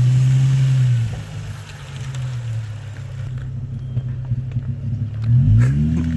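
Nissan 350Z's 3.5-litre V6 running at low revs as the car is driven off. It is loud for the first second, then quieter, and the revs rise briefly near the end.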